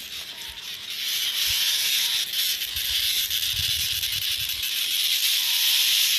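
Cicadas droning: a steady high hiss that swells about a second in and then holds.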